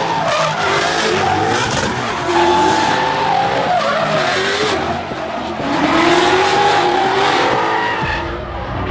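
Two Ford Mustang drift cars sliding in tandem, their engines revving up and down over the squeal of spinning, sliding tyres.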